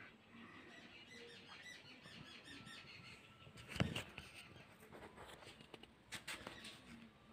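Faint chirping: a quick run of short, high, repeated chirps in the first half, with a single sharp knock about four seconds in and a few light clicks near the end.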